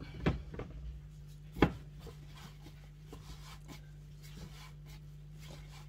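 Whole wheat dough being kneaded by hand on a wooden cutting board: soft pressing and rubbing, with two knocks of the board near the start, the second about a second and a half in and the loudest. A steady low hum runs underneath.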